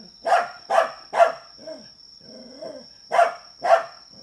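A dog barking: three quick barks, then softer yelps and whines, then two more barks near the end. A thin, steady high-pitched tone runs underneath.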